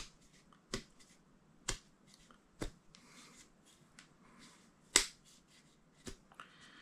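Replica Leatherman trauma shears' strap cutter chewing through a thick rope: sharp snips about once a second, the loudest about five seconds in, with faint rope rustling between. The replica's cutter is struggling and needs many strokes to get through.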